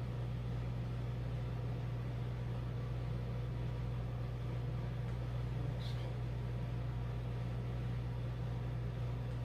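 Steady low machine hum with a faint hiss, holding an even level throughout, such as an air-conditioning unit or appliance running in the room.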